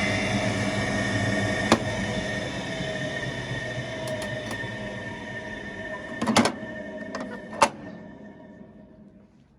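An old washing machine running with a steady hum that slowly dies away, with a sharp knock about two seconds in and a few more knocks near the end.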